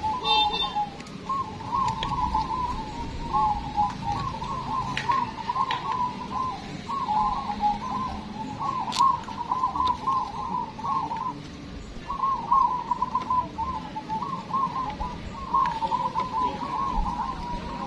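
Many caged zebra doves (perkutut) cooing at once, their rolling, overlapping coos forming a near-continuous chorus with a brief lull about two-thirds of the way through.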